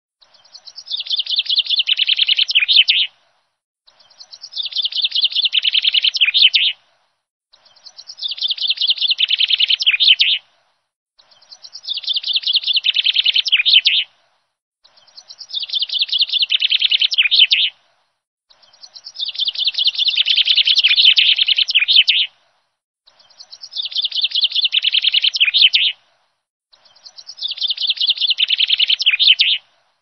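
A small songbird singing the same song phrase over and over: a fast run of high notes that swells in loudness over about three seconds and ends in a few sharper notes. Eight phrases, each followed by a short silent gap.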